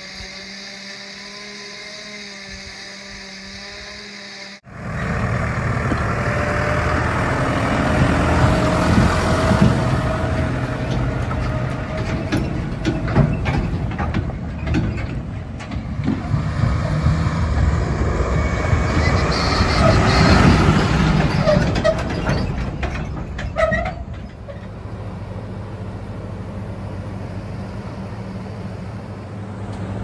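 First a quieter steady hum with several held tones. About five seconds in it cuts suddenly to a tractor towing a loaded silage trailer close by: engine running loud, with many short knocks and rattles from the trailer. Near the end it drops to a steadier, quieter engine running.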